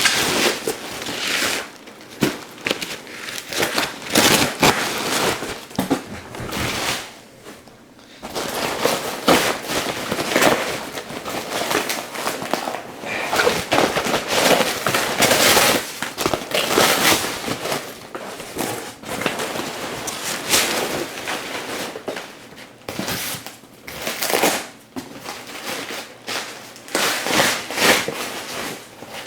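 Bubble wrap being pulled and unwrapped by hand: crinkling and rustling in irregular bursts with sharp crackles, with a short lull about seven seconds in.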